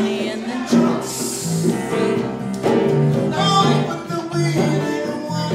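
Live band playing: a singer over guitar and congas.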